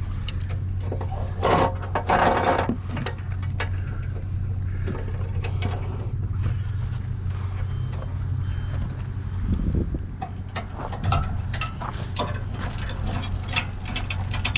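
A vehicle engine idling steadily, with scattered metal clanks and knocks and a louder spell of clanking about two seconds in.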